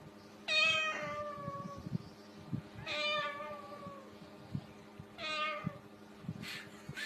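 A domestic cat meowing three times, each meow long and falling in pitch.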